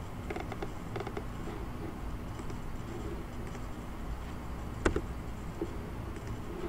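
Low steady hum of room tone with faint clicks in the first second and one sharp click about five seconds in, from a computer mouse being clicked while switching windows.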